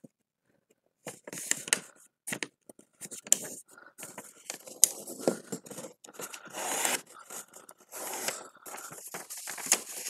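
A sheet of paper being folded and creased by hand, edges brought to the middle: short rustles and scrapes of paper sliding and being pressed flat against the tabletop, starting about a second in.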